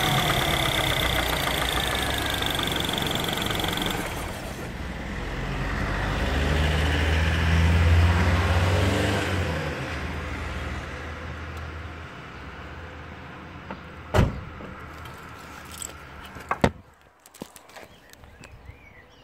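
R56 Mini Cooper engine running after a timing chain replacement, run to check for chain noise. A high whine drops out about four seconds in, the engine swells around eight seconds and then fades, and two sharp knocks come near the end.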